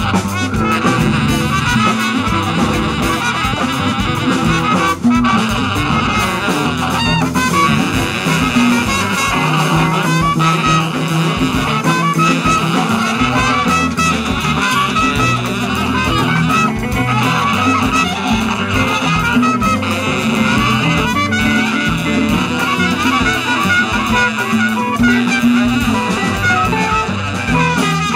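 Live jazz band playing: a baritone saxophone over a drum kit and congas, with a steady pulse of drum hits.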